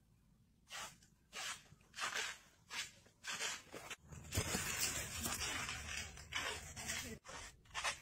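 Clear plastic grafting tape being pulled and wrapped around a graft, crinkling in a series of short scratchy strokes, then a longer run of continuous rustling a little after the middle.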